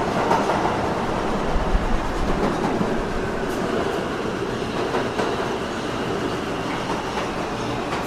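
New York City subway train in motion, a steady rolling noise, with a faint high whine coming in about halfway through and the overall level easing slightly toward the end.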